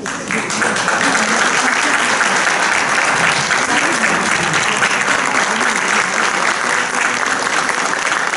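Audience and choir applauding: dense, steady clapping that breaks out suddenly and keeps going.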